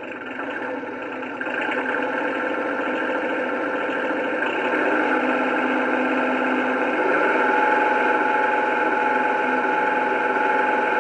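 Lionel Doodlebug model train's onboard sound system playing its simulated gasoline engine sound, revving up in steps through its small speaker. It gets louder about a second and a half in, again around four and a half seconds, and once more around seven seconds, when a higher whine comes in.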